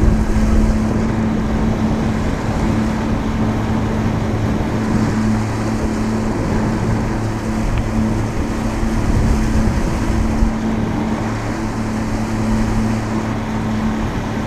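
A small fishing boat's outboard motor running at a steady cruising speed, a constant hum, with wind buffeting the microphone and choppy water rushing against the hull.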